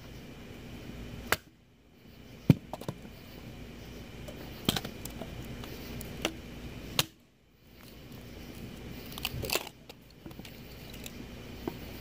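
Wood fire burning in a Pomoly Timber titanium tent stove during its first burn-in: sharp crackles and pops every second or two over a steady background hiss. The sound briefly drops to near silence twice.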